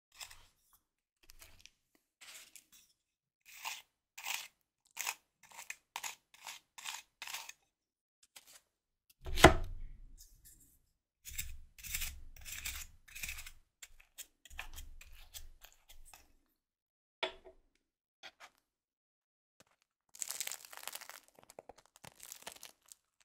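Crispy baked baguette crust crackling and crunching in short strokes, about two a second, as it is broken. About nine and a half seconds in comes one loud knock with a deep thud, then more crunching, a single click, and a dense burst of crackling near the end.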